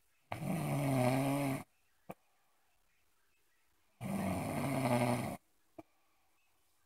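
Loud snoring: two long, buzzing snores about three and a half seconds apart, each followed by a short click.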